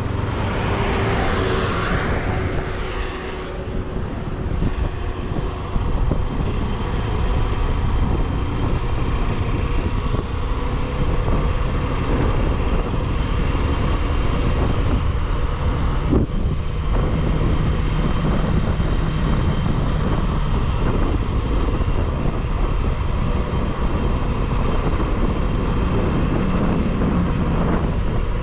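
Motorcycle riding along the road: steady wind rush on the microphone over the running engine and road noise, with a louder rush in the first two seconds.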